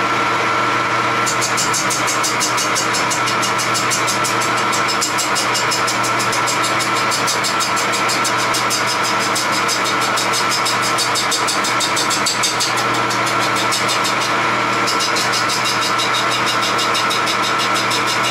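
Homemade wood lathe with a countershaft running steadily with a motor hum, while a turning tool cuts a rough log blank to true its end. The cut gives a rapid, even rhythm of hits from the uneven surface, which eases off for a couple of seconds about two-thirds of the way through.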